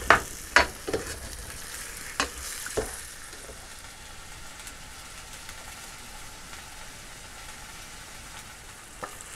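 Pork belly pieces in a sweet chilli sauce sizzling in a stainless steel frying pan as the sauce reduces. There are a few spatula knocks and scrapes against the pan in the first three seconds, then a steady sizzle.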